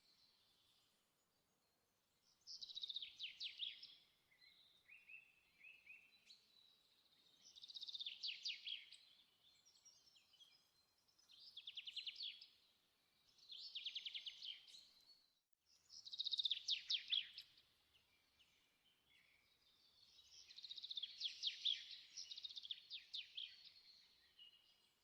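A small songbird singing faintly: six short trilled phrases, each a second or two long, a few seconds apart.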